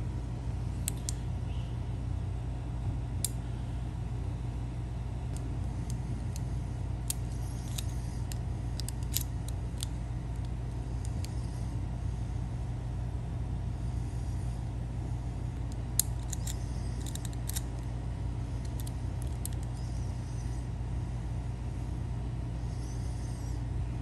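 Steady low machine hum throughout, with scattered light metallic clicks as a flat steel trial key is turned and worked in a small brass antique lever lock, feeling for which levers lift.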